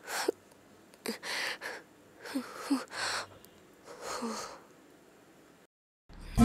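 A boy crying: four or five short, breathy sobs with brief catches of voice, spread over the first four seconds or so.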